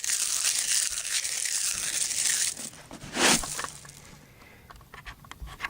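Dirt and debris being flushed out of a Honda CL350's steel fuel tank during cleaning. A rushing, rattling noise lasts about two and a half seconds, then comes a short burst, then a few faint clicks near the end.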